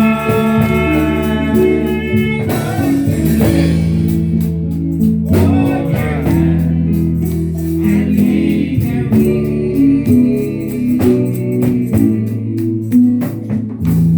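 Gospel music played live: guitar and bass guitar over a steady beat, with a voice singing.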